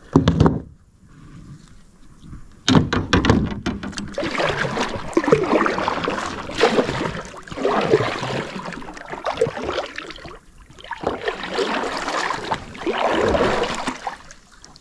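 A kayak paddle stroking through the water: repeated splashing swells, one every second or two. Before the strokes, about three seconds in, there is a short run of knocks.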